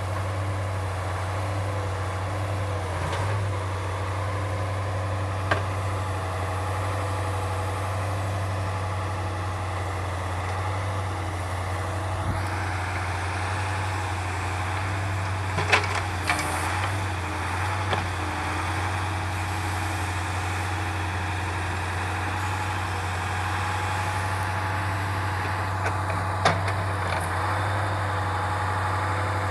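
Truck engine running steadily to drive the hydraulics of an OMTL 70-02 timber-loading crane, a constant low hum with a steady whine over it. A few sharp knocks break in, the loudest about 16 seconds in and again near the end.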